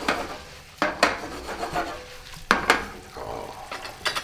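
Pasta being stirred and tossed in a skillet over high heat: scraping in the pan with several sharp knocks of pan and utensil, over a light sizzle of the sauce reducing.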